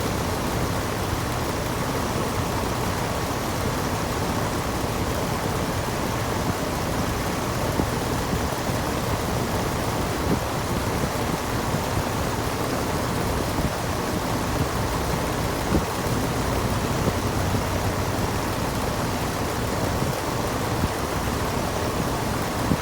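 Gibson air conditioner running steadily: a constant rushing noise with a low hum underneath and a faint steady tone.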